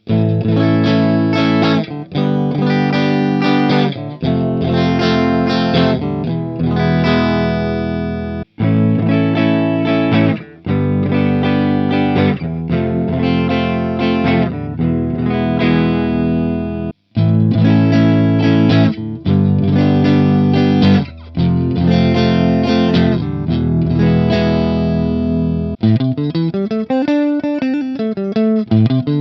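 Ibanez RG 350MZ electric guitar played with distortion: sustained chords, each ringing about two seconds, in a progression that repeats three times with brief breaks between. Near the end it switches to quick single-note runs.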